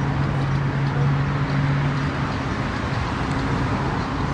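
An engine idling with a steady low hum that stops about two seconds in, over constant outdoor noise.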